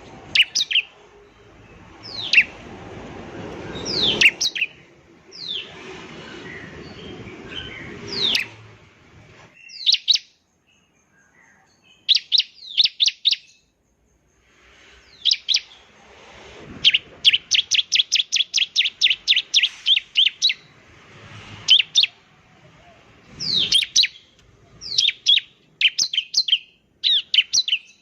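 Bar-winged prinia (ciblek) singing: sharp, high notes that sweep downward, repeated every second or two. In the middle comes a fast run of about a dozen quick notes, some four a second.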